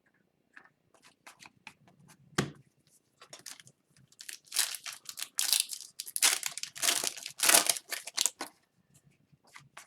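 A few light clicks and a sharp tap, then a few seconds of crinkling and tearing as a hockey card pack wrapper is torn open and handled.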